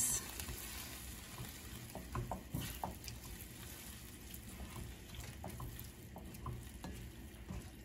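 Spatula stirring a wet mixture of cauliflower and ground lupin in a non-stick pan, faintly: soft wet squelching with scattered light ticks and scrapes.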